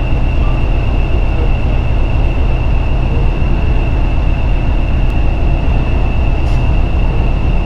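English Electric Class 40 diesel locomotive's 16-cylinder engine running steadily, a deep low rumble under a constant high turbocharger whistle.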